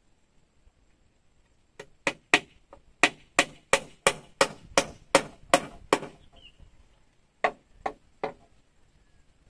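A blade chopping into wood or bamboo: about a dozen sharp strikes at roughly three a second, then a short pause and three more strikes.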